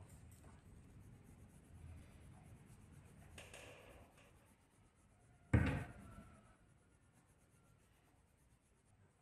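Coloured pencil scratching and rubbing on paper as a drawing is shaded, with a single sharp knock a little over five seconds in.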